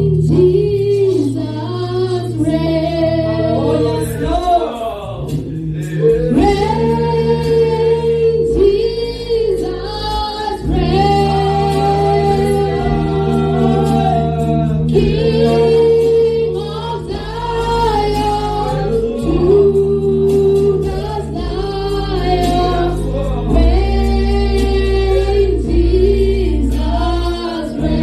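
A choir singing a gospel song over sustained low bass notes that change every few seconds.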